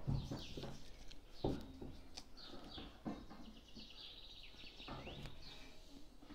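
Small birds chirping and trilling, with a few soft thumps about every one and a half seconds underneath.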